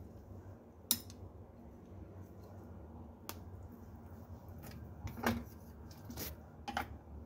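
Scattered light clicks and taps of a utensil and noodles against a metal saucepan as rice vermicelli is pushed down into the soup. The sharpest click comes about a second in, with several more in the second half.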